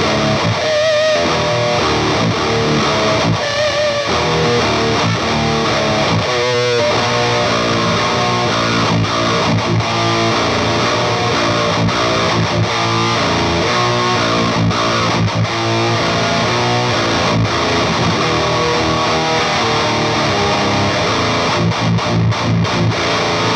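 Seven-string electric guitar played through a Peavey Bravo 112 all-tube combo amp on a high-gain, heavily distorted setting: chugging metal riffs, with held, wavering notes about one, three and a half and six and a half seconds in.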